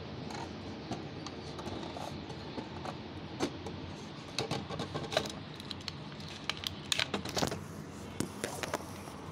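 Light clicks and clatter of a plastic toy kitchen set and its small plastic dishes being handled, in scattered bursts over a steady background noise.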